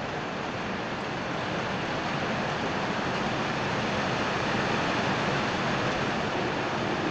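Steady rushing wind noise, even and unbroken, with no distinct events.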